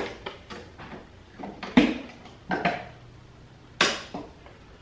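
A removed plastic rear bumper cover being handled while it is measured and marked for cutting: about half a dozen sharp knocks and clatters, the loudest a little under two seconds in.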